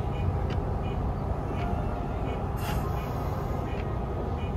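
Nishitetsu 5000 series electric train running, heard from inside the front of the car: a steady low rumble with a few sharp clicks spread through it.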